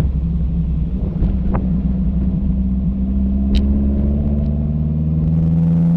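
1969 Alfa Romeo Spider 1750 Veloce's Weber-carburetted twin-cam four-cylinder engine pulling steadily while the car drives, its note easing slightly lower near the end. A single sharp click comes about three and a half seconds in.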